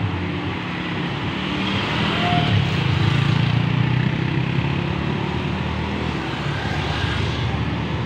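Large coach bus's diesel engine running at low speed while the bus manoeuvres, growing louder about two seconds in and easing back slightly toward the end.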